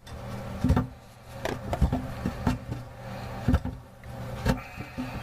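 Irregular clicks and knocks of parts being handled under a bathroom sink while the old faucet's mounting nuts and washers are worked loose, over a steady low hum.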